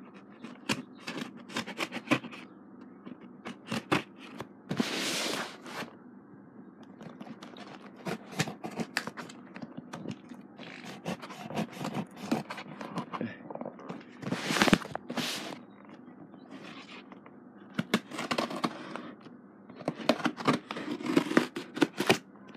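Scissors scraping and cutting along a cardboard box to open it: an uneven run of scratches and clicks, with a few longer scraping strokes, one about five seconds in and another near the middle.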